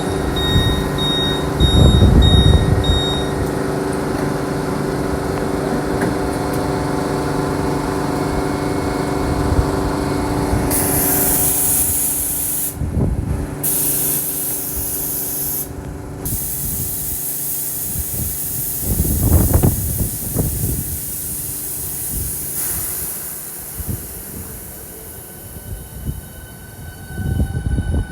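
High-speed electric train at a station platform, its equipment humming steadily with several fixed tones. Partway through, a loud air hiss starts and runs for about twelve seconds, cutting out briefly twice. A few short high beeps sound in the first few seconds.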